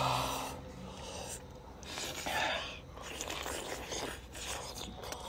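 A person eating, with two breathy exhales, one at the start and another about two and a half seconds in, among faint clicking mouth and chewing noises.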